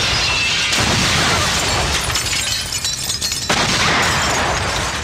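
Dramatic film soundtrack: a loud, dense wash of crashing noise over background score, surging afresh about a second in and again after three seconds.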